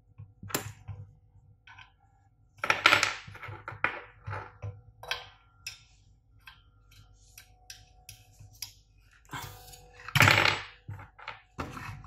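Gloved hands handling an aluminium heatsink fitted with IGBTs and a hex key on a workbench: scattered small clicks and knocks, with two louder bursts of scraping and clatter, about three seconds in and again about ten seconds in.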